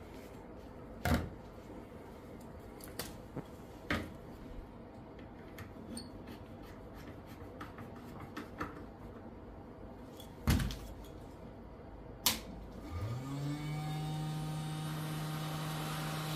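A few sharp clicks and knocks of tools being handled on a workbench. About thirteen seconds in, a hot air rework station's blower starts up, rising briefly in pitch and settling into a steady hum.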